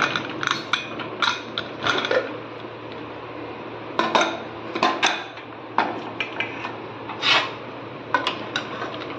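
A metal ladle clinking and scraping against the inside of an aluminium pressure cooker pot while freshly cooked chickpea curry is stirred and checked for doneness. The strikes come at irregular intervals, with a longer scrape about seven seconds in.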